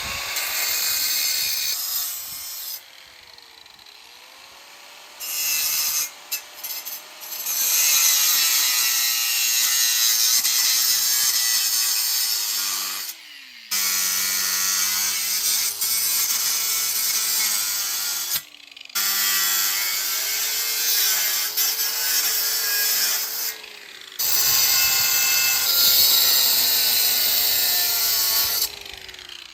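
A power tool cutting through steel angle iron: a loud, hissing cut in several long runs with sudden stops between them, the motor's pitch wavering as it is loaded.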